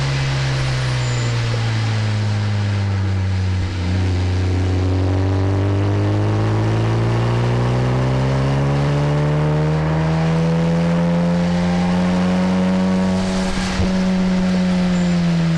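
Honda Civic Type R FK8's turbocharged 2.0-litre four-cylinder engine heard from inside the cabin: its note falls as the car slows for about four seconds, breaks briefly, then rises steadily under acceleration and holds high near the end, over a steady hiss of tyres on the wet track.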